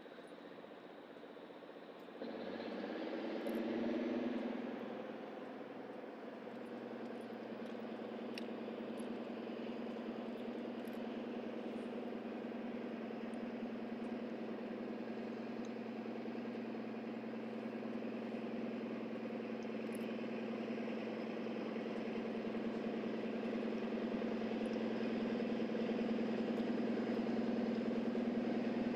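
Narrow-gauge diesel locomotive engine throttling up about two seconds in, its pitch rising, then running as a steady drone that grows gradually louder as the locomotive draws nearer.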